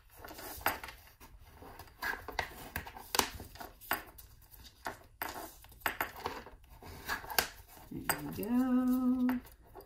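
Sheets of glued printer paper being folded over and creased by hand, with crisp rustles and crackles every second or so. About eight seconds in, a voice holds a steady hum for a little over a second.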